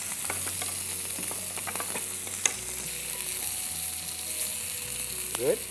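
Masala-coated fish fillets shallow-frying in oil in a pan, giving a steady sizzle. A utensil clinks against the pan several times, with a sharper clink about two and a half seconds in.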